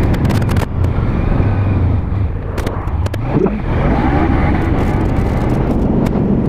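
Kawasaki Ninja 300's parallel-twin engine running on its quiet stock exhaust while riding, under heavy wind rumble on the microphone. About three seconds in, the engine note climbs as it revs.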